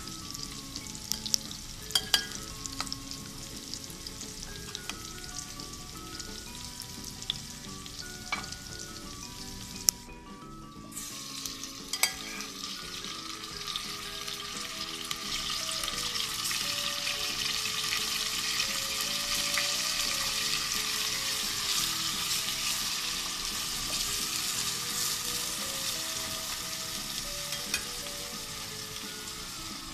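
Onion and garlic sizzling in hot oil in a stainless steel pot, with a few sharp utensil clicks in the first half. About halfway through, the sizzle grows louder and fuller as marinated beef chunks sear in the pot.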